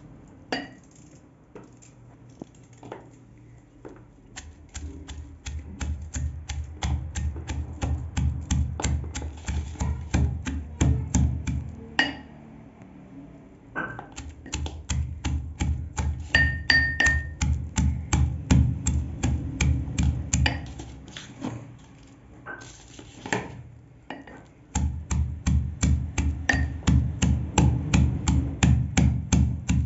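Pestle pounding leafy greens and onion in a metal mortar: rhythmic dull thuds at about three strokes a second, in three runs with short pauses between them.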